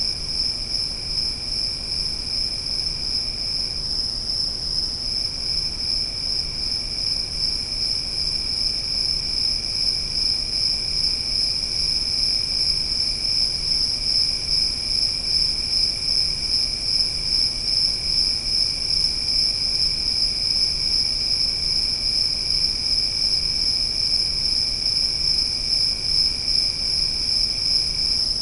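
Forest insect chorus, crickets trilling in a steady, continuous high-pitched chirr. A second, lower insect tone runs alongside and drops out briefly about four seconds in and again near the end.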